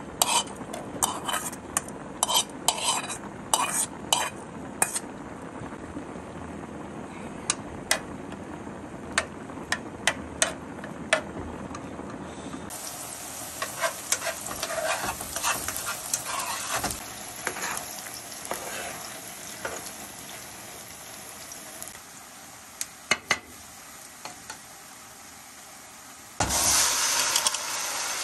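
Chopped onions sizzling as they fry in a pan, with a metal spoon clicking and scraping against the bowl and pan as they are tipped in and stirred. Near the end the sizzle jumps much louder as tomato is poured into the hot pan.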